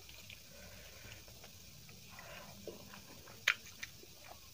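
Bare hand mixing biryani rice with gravy on a plate: faint soft squishing and rustling of the rice, with one sharp click about three and a half seconds in and a few small ticks after it.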